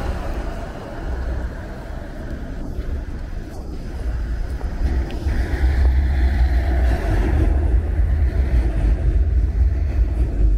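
Toronto Flexity streetcar passing close to the microphone over steady street traffic noise, with a low wind rumble on the microphone. It grows louder from about halfway through as the streetcar comes alongside.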